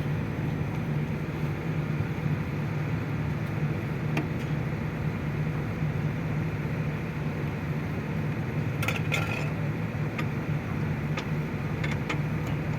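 Engine running steadily at an even speed, with a few metallic clinks, the longest about nine seconds in.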